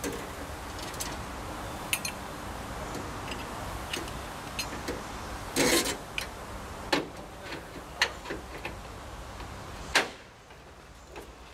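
Scattered metal clicks and clinks of a hand tool working a semi truck's air-brake gladhand and hose fitting, with a longer rattle about halfway through and a sharp click near the end.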